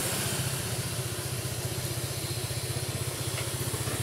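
Motorcycle engine idling steadily, with an even, fast pulse.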